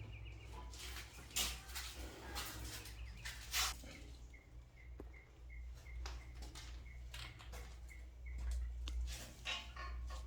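Scattered knocks and scrapes as a toilet bowl is handled and set over its wax ring. A bird chirps about three times a second in the middle, over a low steady hum.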